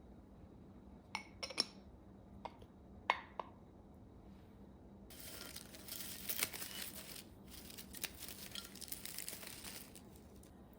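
Several light clinks of dishware being handled, about six sharp ones in the first few seconds, then wrapping crinkling and rustling for about five seconds.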